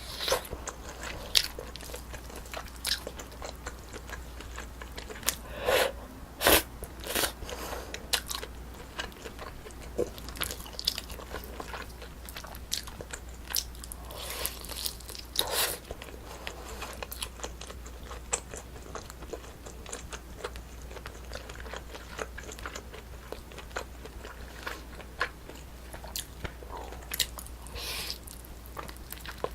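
Close-miked eating: a person chewing and biting food, with irregular wet clicks and crunches.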